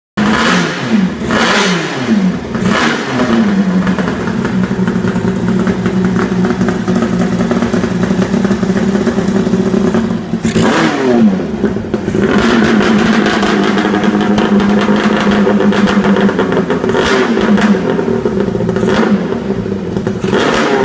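Kawasaki H2 750 two-stroke triple with a 3-into-1 exhaust, running after a full rebuild. It idles steadily, and the throttle is blipped several times, the revs rising and falling back.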